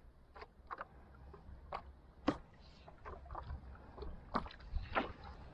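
Small waves lapping against a kayak's hull, with scattered short sharp knocks, the loudest about two seconds in, over a low rumble.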